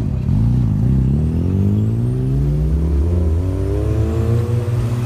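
Rotary-engined Mazda sports car pulling away, its engine note rising steadily for several seconds, over the steady low drone of other engines.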